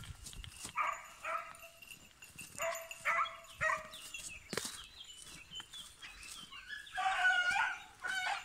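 Beagle giving tongue while it works a hare: several bursts of high-pitched yelping bays, a few yelps each, the longest near the end.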